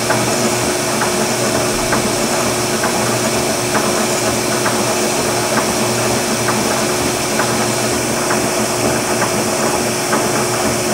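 Oliver Model 600 drill grinder running: the spindle motor and grinding wheel hum and hiss steadily as the automatic infeed grinds the point of a drill turning in the chuck. A faint tick comes about once a second.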